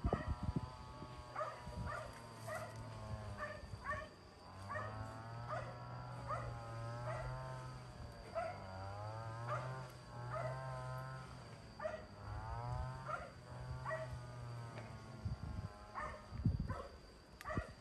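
An animal calling: a run of long, wavering cries, each lasting a few seconds.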